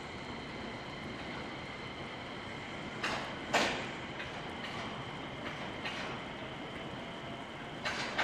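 JR West 227 series three-car electric train pulling away from the platform with a steady running noise. Its wheels give a few sharp knocks over rail joints, the loudest about three and a half seconds in and another pair near the end.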